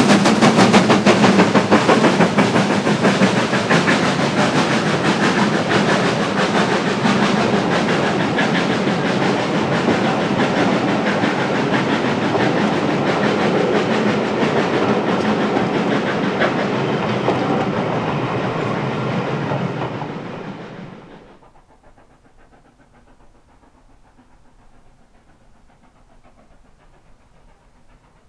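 A steam train running past, a loud, fast clatter of wheels and exhaust beats. It dies away quickly about twenty seconds in, leaving only faint background.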